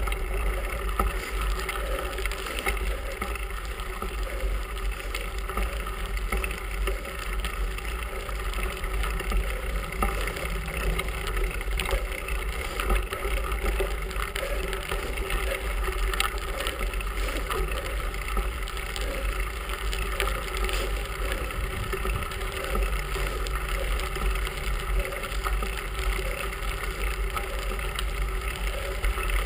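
Bicycle rolling along a gravel road, heard from a handlebar-mounted camera: a steady low rumble of tyres on gravel with constant small rattles and ticks from the bike.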